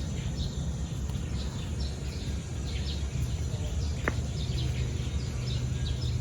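Outdoor rural ambience: many small birds chirping in short repeated calls over a steady high insect drone, with a low steady rumble underneath.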